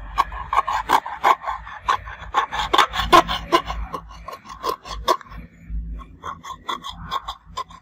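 Pointed metal tweezers scraping and scratching along the edge of a Redmi Note 7 Pro's middle frame, in a quick, irregular run of short scrapes with a brief pause a little past five seconds in.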